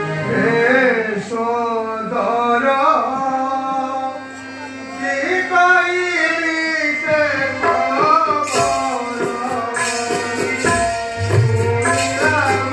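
A song from a Ramalila stage performance: a single voice sings a melodic line with long bending phrases over a steady held tone. Hand drums come in with quick strokes about seven seconds in.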